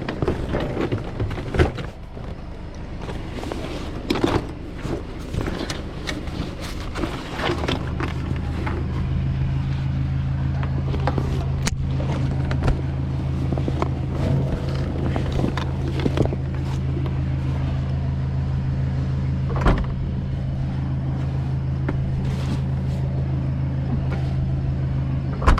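A car running, a steady low engine and road hum that grows stronger about seven seconds in, with scattered clicks and knocks over it.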